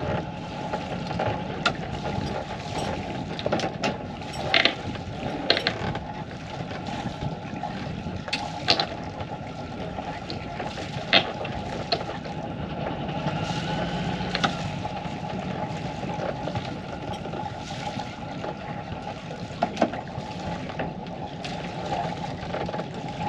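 Sailboat's inboard engine running steadily at low speed while mooring, with scattered sharp clicks and knocks of deck gear and lines. A faint rising whine and a slight swell in the engine a little past halfway.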